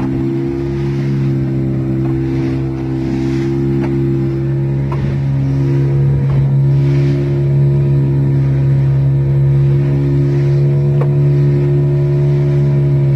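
Engine of a small wooden fishing boat running steadily under way, a constant low drone that holds one pitch.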